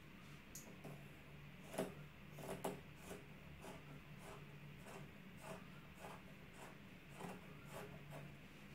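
Fabric scissors snipping through cloth: a dozen or so faint, short cuts, roughly two a second and unevenly spaced.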